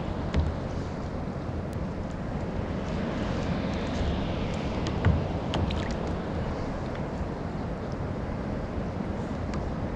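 Steady wind rumble on the microphone over water lapping against a plastic sit-on-top kayak's hull, with two light knocks, one just after the start and a louder one about five seconds in.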